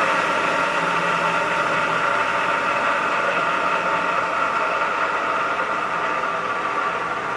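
Wilton Model 2025 drill press with its 1-1/2 HP three-phase motor running, a steady machine hum with several whining tones; a low tone drops away about two seconds in.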